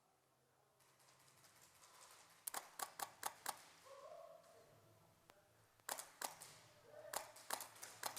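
Airsoft guns firing: faint, sharp clicks in short rapid strings, with a cluster about two and a half seconds in, another near six seconds, and a third just before the end.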